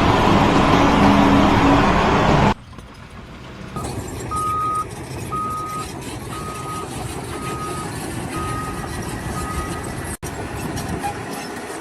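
Heavy construction machinery running loudly. After a cut, a reversing alarm beeps six times, about once a second, over the steady noise of the machine's engine.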